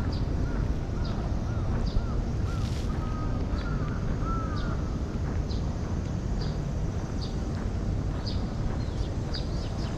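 A crow calling in a quick series of short caws over the first five seconds or so, with small birds chirping high and briefly throughout, over a steady low outdoor rumble.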